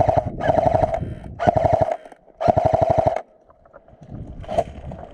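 Airsoft gun firing four rapid full-auto bursts in quick succession, each about half a second long, then stopping; a single sharp click follows about a second and a half later.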